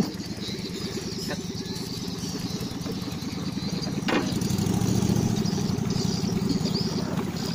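Small boat engine running steadily with a fast, even pulse, growing a little louder about halfway through. A short rising high sound comes about four seconds in.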